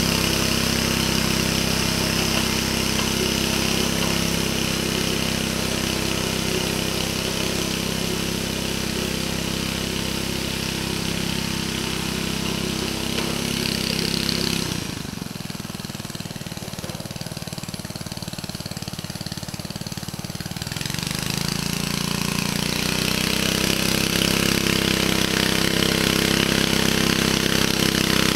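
1949 Bready walk-behind tractor's small engine running steadily as it pulls a disc harrow through soil. The engine sound drops away for several seconds about halfway through, then comes back up.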